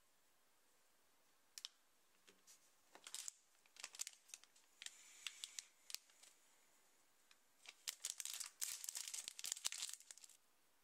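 Crinkling and tearing of a blind-bag toy wrapper being opened by hand, in irregular crackly bursts that start about a second and a half in, grow busiest near the end, then stop.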